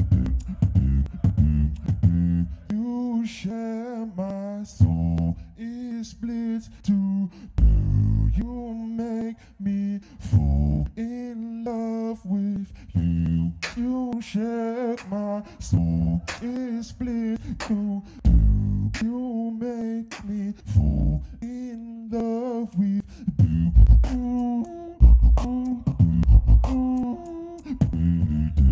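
Solo beatboxing into a handheld microphone: deep kick-drum hits and sharp clicking snares and hi-hats over a held, hummed bass tone. A wavering, sung-style vocal melody is layered on top at several points.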